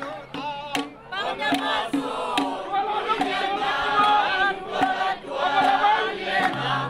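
A group of voices singing a song together, with a regular beat.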